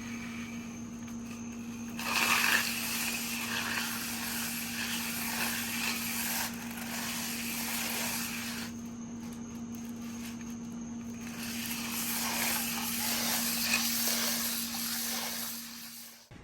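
Cylinder hone spinning in the cylinder bores of a Toyota JZ engine block, a steady motor tone under a hissing, scraping rush that swells in two long stretches and eases between them. It cuts off just before the end.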